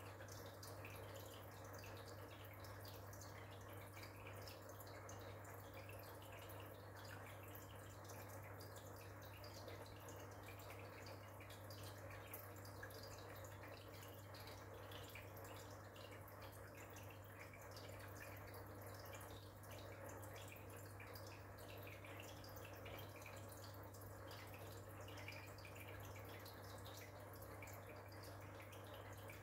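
Aquarium internal filter running faintly: a steady low hum with light water trickling and dripping.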